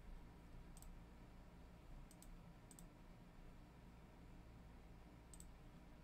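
A handful of faint, sharp clicks, some in quick pairs, over near-silent room tone.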